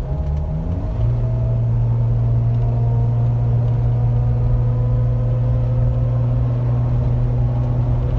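Steady droning hum with fainter whining tones above it from a 2015 Jeep Wrangler JK's drivetrain under acceleration, setting in about a second in and holding steady. It is heard only with throttle on; the owner cannot place it, guessing at the rear differential pinion bearing or the tensioner pulley, with the idler pulleys already replaced.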